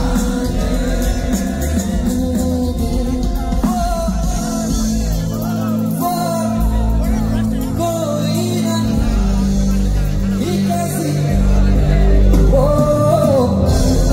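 Live performance of a Hindi film song: a male vocalist sings long, wavering held notes over sustained keyboard chords and bass.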